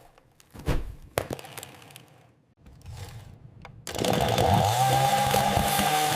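AI-generated sound of a chainsaw cutting a sweet: two sharp cracks about a second in, some faint crackling, then about four seconds in the chainsaw starts running steadily with a low hum and a higher whine.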